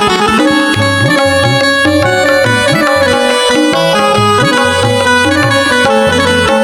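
Instrumental interlude of a Hindi bhajan: a reedy melody instrument playing sustained notes over a rhythmic bass line, with no singing.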